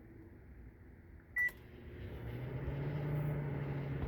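Microwave oven keypad beeps once about a second and a half in, then the oven starts running with a steady low hum that swells up and holds.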